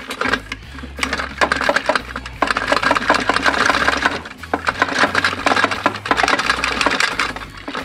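4L60E reverse input housing being wiggled and turned by hand as it drops down over the input housing in the transmission case: a rapid metallic rattle and clicking of splined steel parts working into mesh, in several spells with short pauses.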